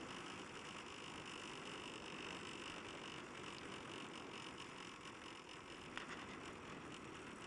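Faint steady rolling and wind noise from a motorcycle coasting in neutral with its engine dead after running out of fuel, with one light tick about six seconds in.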